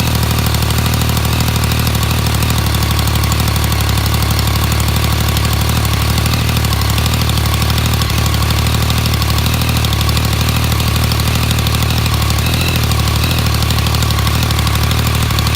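2016 Yamaha MT-09's inline three-cylinder engine idling steadily with a fast, even mechanical clatter. The bike shop calls this rattle normal for this engine.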